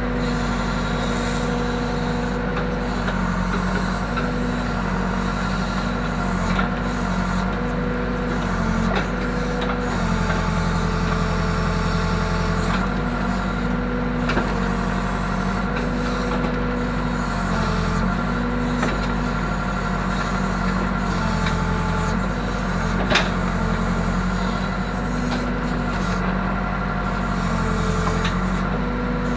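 Case 580K backhoe's diesel engine running steadily under working load, its note dipping and rising every few seconds as the hydraulics are worked. A single sharp knock comes about two-thirds of the way through.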